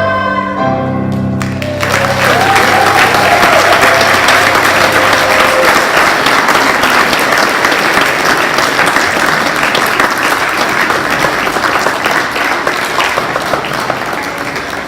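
A children's choir holds the final chord of a song with accompaniment, which ends about two seconds in. Loud audience applause breaks out and carries on, starting to fade near the end.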